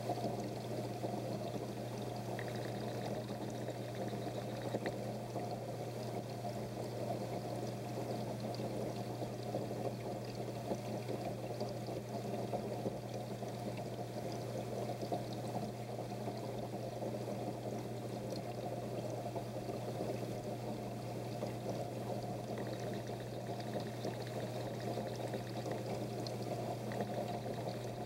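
Water pouring steadily into a goldfish tank or pond, a constant splashing trickle like a filter return, over a low steady hum.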